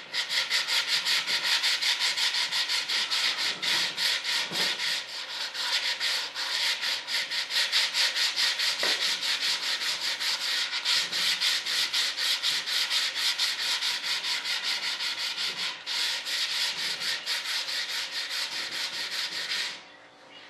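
Hand sanding with fresh sandpaper inside a fiberglassed model-jet intake duct: quick back-and-forth scraping strokes at about three a second. It stops near the end.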